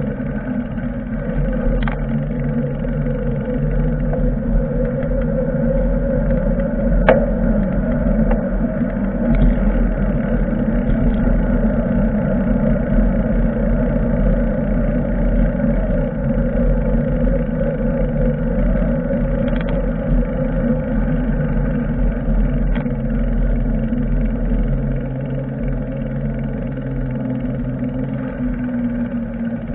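Steady wind rumble and road noise picked up on the mic of a bicycle rider on the move, with a few brief sharp clicks scattered through it.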